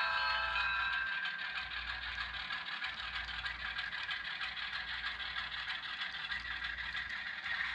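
HO scale Atlas ALCO diesel locomotive's factory sound decoder playing diesel engine sound through its small onboard speaker as the model pulls boxcars. A steady multi-tone horn note from the decoder ends about a second in.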